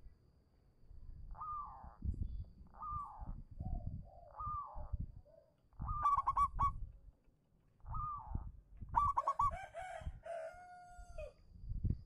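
Zebra dove (perkutut) singing: a series of short cooing phrases about every second and a half, with quick rolling trills about six and nine seconds in and a longer held note near the end. A low rumble runs underneath.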